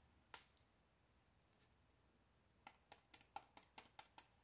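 Faint, quick clicks of a blade peeling an apple by hand: a single click just after the start, then from a little past halfway a steady run of about five clicks a second, one for each peeling stroke.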